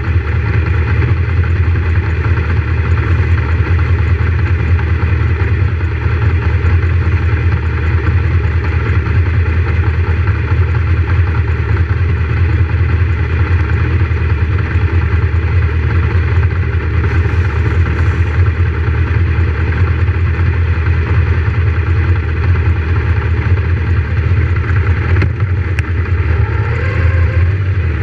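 Several motorcycle engines idling together with a steady, low hum, and a short rising engine note near the end.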